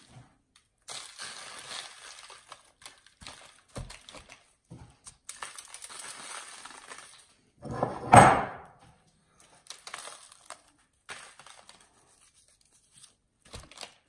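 Paper rustling and handling noises as dry rub is dusted and patted onto a raw whole pork leg on a wire rack over parchment paper, in scattered spells with short silent gaps and one loud rustle about eight seconds in.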